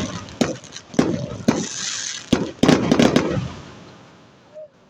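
A rapid run of loud, sharp bangs in clusters, each with an echoing tail, that fade away near the end. They sound exactly like SA80 5.56 mm rifle fire.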